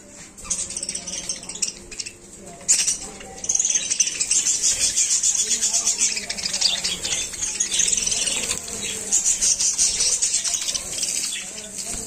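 A flock of budgerigars chattering and chirping in rapid, overlapping calls, growing much louder and denser about three and a half seconds in.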